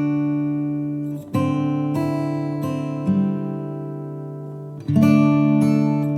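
Acoustic guitar music: chords strummed and left to ring, with a fresh strum about every two seconds.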